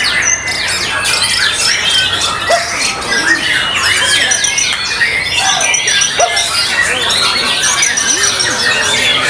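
White-rumped shama singing a fast, varied stream of whistled phrases, with other caged songbirds singing over it at the same time.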